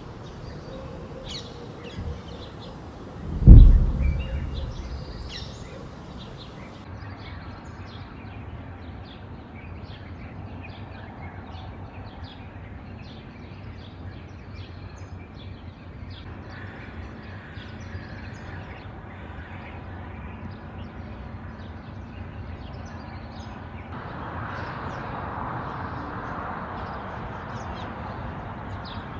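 A single deep boom of a distant explosion about three and a half seconds in, the loudest sound, with a low rumble fading over a second or two. After it, steady outdoor background noise with birds chirping.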